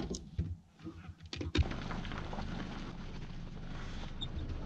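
A sharp knock about one and a half seconds in, then a steady low rumble with a hum, and wind buffeting the microphone.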